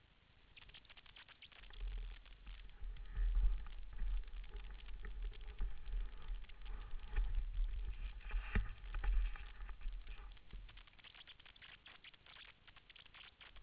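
Handling noise on a small camera's microphone: a low rumble with scratchy rustling and clicks, starting about two seconds in and dying away near the end.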